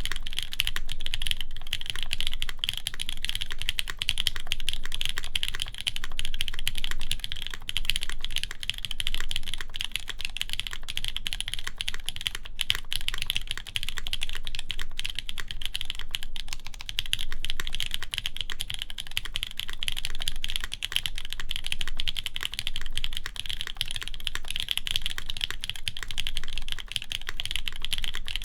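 Continuous, fast typing on a custom mechanical keyboard: a Keycult No. 1 Rev. 2 with lubed JWicks linear switches on a full polycarbonate plate, under GMK keycaps. The keystrokes come as a dense run of clicks.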